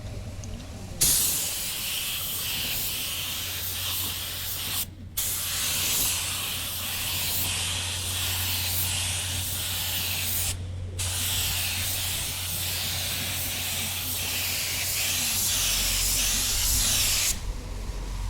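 Paint being sprayed onto a car bumper for a second coat: a long, steady hiss that starts about a second in, breaks off briefly twice (about 5 and 11 seconds in) as the spray is paused between passes, and stops shortly before the end. A steady low hum runs underneath.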